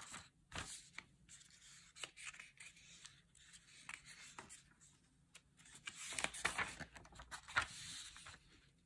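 Paper instruction sheet rustling and crinkling as it is handled and unfolded, with small ticks and scrapes of paper. The rustling is louder and denser about six to eight seconds in, as the sheet is turned over to another page.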